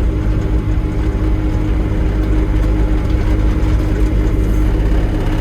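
Bobcat E27 mini digger's diesel engine running steadily, with the even hum of its hydraulics as the machine is driven onto level ground.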